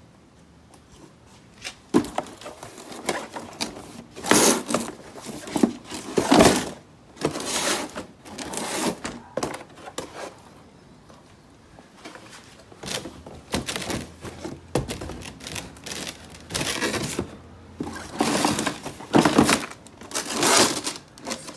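Handling noise as an RC monster truck is pulled out of its cardboard box and set down: irregular bouts of cardboard rustling and scraping with a few sharp knocks.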